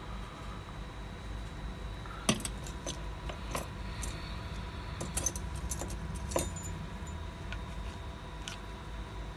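Light metallic clicks and taps from steel tweezers and small metal parts being handled on an iPhone 7 logic board. They come scattered, mostly between about two and seven seconds in, with the sharpest near the start of the run. Under them runs a steady low hum.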